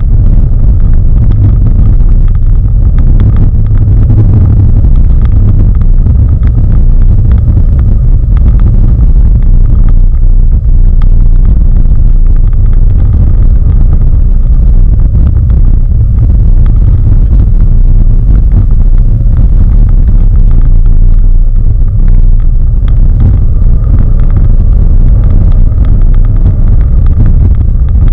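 Loud, steady low rumble inside the cabin of a BMW 530i being drifted hard on snow: engine and tyre noise heard from inside the car.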